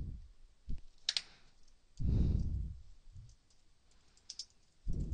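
Computer keyboard typing: scattered key clicks, a few of them bunched together near the end. Two dull low thumps, the louder one about two seconds in and another just at the end, are louder than the key clicks.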